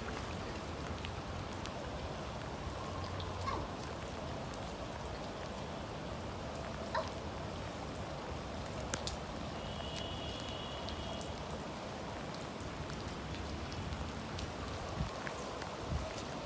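Steady rain falling and pattering on hard surfaces, with scattered louder individual drop hits.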